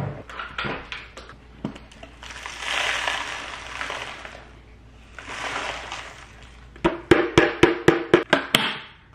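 The plastic dust cup of a Shark upright vacuum being emptied into a trash bin: two spells of rustling as the hair and dust slide out, then a quick run of sharp knocks as the cup is shaken and tapped to clear it.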